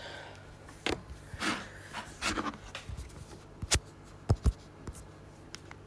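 Handling noise: soft rubbing and rustling with scattered clicks and taps, a few sharper knocks in the middle.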